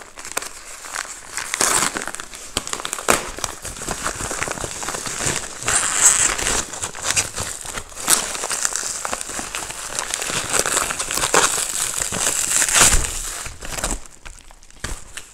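Packaging bag crinkling and crumpling as hands pull it open and off, a continuous crackle with sharper crinkles scattered through it. Near the end it turns to the handling of black plastic wrapping, and the sound grows quieter.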